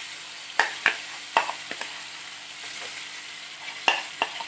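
Okra and tomatoes frying in hot coconut oil in a non-stick pan, sizzling steadily as a thick masala paste is spooned in to be fried. Several sharp clicks of the spoon tapping against the spatula and pan, two in the first second or so, and more near the end.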